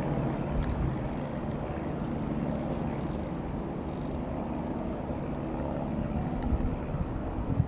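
Robin HR.200-160 light aircraft's single piston engine and propeller droning steadily as it flies over, with low wind rumble on the microphone.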